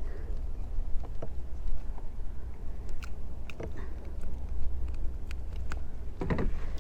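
Wind buffeting the microphone in a steady low rumble, with a few scattered light clicks and knocks of handling.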